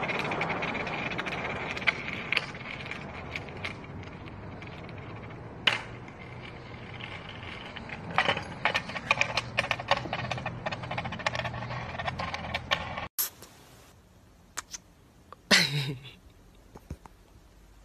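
Skateboard wheels rolling over a concrete lot, a steady rough rumble with many sharp clicks from bumps and joints, until it cuts off abruptly about 13 seconds in. Then it is quieter, apart from one loud, brief sound that falls steeply in pitch.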